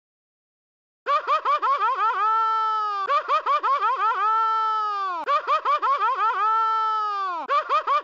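A pitched, laugh-like sound effect that starts abruptly about a second in: a quick run of about six short bouncing 'wah' notes, then one long held note that drops away at its end, the cycle repeating about every two seconds.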